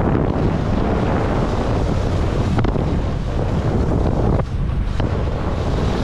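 Wind buffeting the microphone while skiing downhill, with the hiss of skis running over snow. The noise drops briefly a little past halfway, then picks up again.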